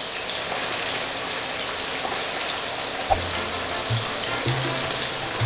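Breaded chicken pieces deep-frying in a pan of oil, a steady sizzle. Low bass notes of music come in about three seconds in.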